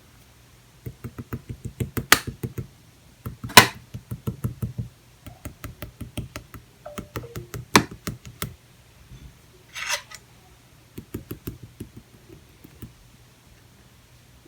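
Clear jelly-textured slime being handled, giving runs of quick small clicks and pops, with a few sharper, louder pops.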